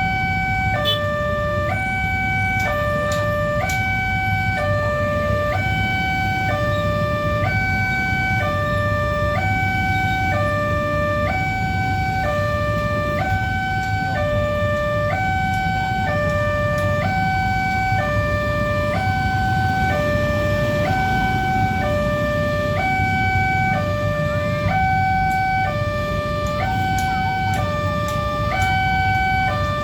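Railway level-crossing warning siren sounding a steady two-tone hi-lo alternation, switching between a higher and a lower note about once a second. It is the crossing's signal that a train is approaching and the gates are closing, heard over a low rumble.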